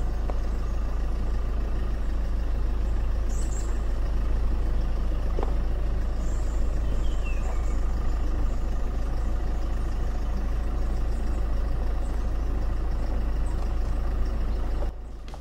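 Steady vehicle driving noise: a deep, even rumble with road noise, dropping off sharply near the end.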